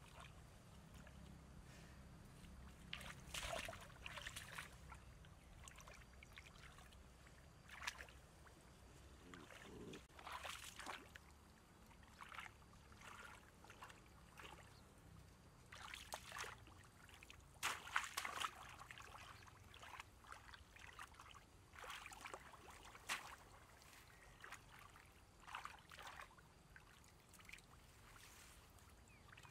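Shallow muddy water splashing and sloshing in short irregular bursts as a person wades and plunges a bamboo fish basket down into it.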